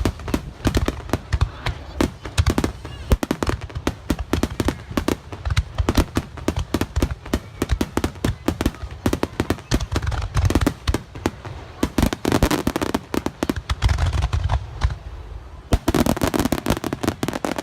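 Fireworks going off at close range in a rapid, continuous barrage: many sharp bangs and crackles a second over deep booms, thinning briefly about fifteen seconds in before another dense volley.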